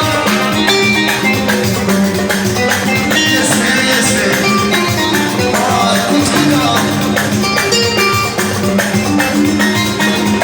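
Live raï-style band music led by a Korg Pa3X arranger keyboard: a melodic keyboard line that steps up and down over a steady, even drum and percussion beat.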